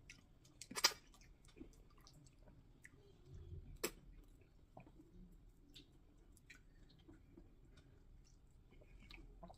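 Quiet mouth sounds of eating plantain fufu with black soup: soft wet smacks and scattered clicks, the sharpest about a second in and again near four seconds.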